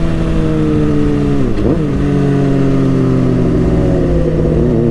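Motorcycle engine running under way with wind rushing past. The engine note eases down, dips sharply and picks back up about a second and a half in, as at a gear change, then holds steady.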